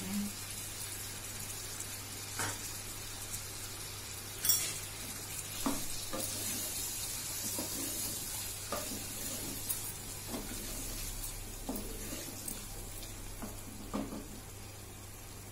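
Mutton pieces and fried onions sizzling in oil in a pressure cooker, with ginger-garlic paste just added and being fried in. A wooden spoon stirs them, scraping and knocking against the pot every second or two.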